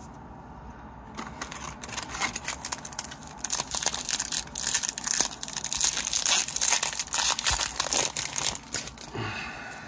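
Hockey card pack wrapper crinkling and tearing as it is opened, a dense irregular crackle from about a second in until near the end.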